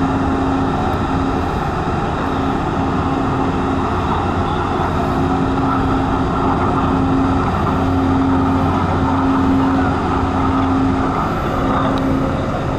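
Docked car ferry's engines running: a loud, steady mechanical drone with a low hum and a humming tone that fades in and out.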